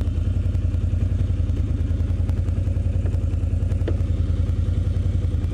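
Can-Am Outlander ATV engine running steadily at low revs, with a fast, even low pulse and no change in speed.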